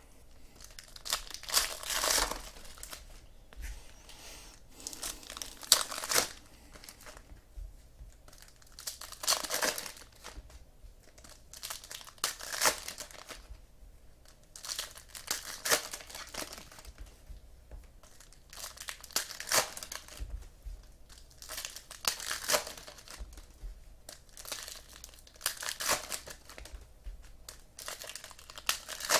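Trading-card pack wrappers being torn open and crinkled, in repeated short rustling bursts every second or two.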